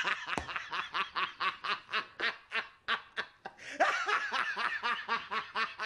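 A man laughing in quick repeated bursts, about four to five a second, breaking off briefly and starting again about four seconds in.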